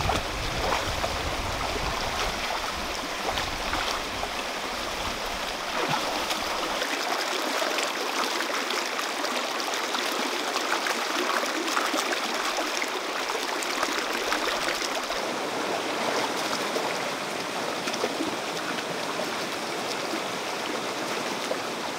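Shallow rocky stream rushing and burbling over stones in a steady wash of water noise, with a deeper rumble underneath for the first several seconds that then drops away.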